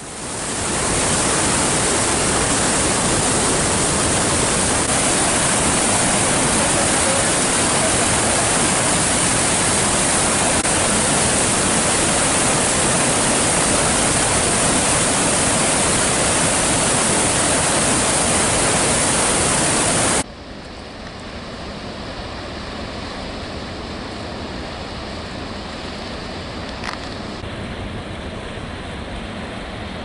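Water gushing out of large pump-house outlet pipes into a channel: a loud, steady rush. About twenty seconds in it cuts to a quieter, duller steady rush.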